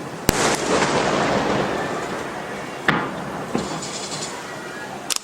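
Aerial fireworks shells bursting over water: a sharp bang just after the start, followed by a long crackling hiss as the stars burn out, then a second bang about three seconds in.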